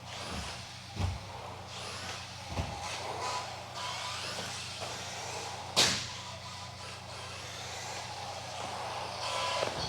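Associated RC10B6.4 electric RC buggy with a 17.5-turn brushless motor running on a carpet track: motor whine and tyre noise swelling and fading as the car comes and goes. A sharp knock near the middle is the loudest moment.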